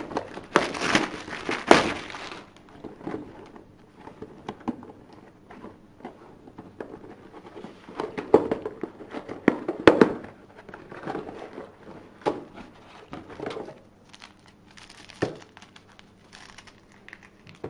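Cardboard box and plastic wrapping being handled and opened, with irregular crinkling, rustling and tearing. The rustling is loudest in the first two seconds and again around eight to ten seconds in, with a single sharp tap about fifteen seconds in.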